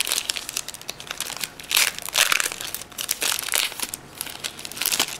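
Foil wrapper of a Pokémon trading card booster pack crinkling in uneven bursts as it is torn open by hand and pulled apart to get at the cards.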